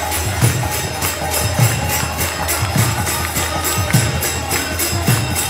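Kirtan music: a mridanga drum beats steadily, about twice a second, under a quicker metallic jingle and harmonium.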